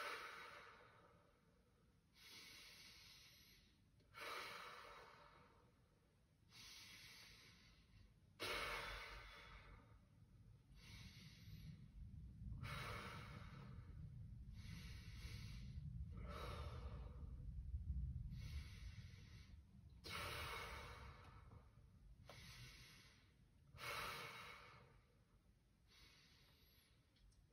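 Slow, deep diaphragmatic breathing by a man in a counted breathing exercise: soft rushes of air in and out, one full breath about every four seconds. A low rumble sits underneath for several seconds in the middle.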